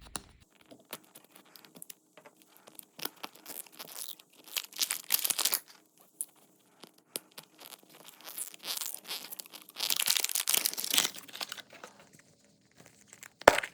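Plastic wrapping torn and crinkled by hand as a toy blind-ball capsule is unwrapped, in irregular rustling bursts with small clicks. There is a sharp click near the end.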